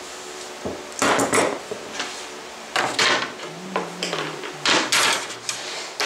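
Aluminium Festool track-saw guide rail being slid and shifted across a plywood tabletop: three short scrapes, roughly two seconds apart.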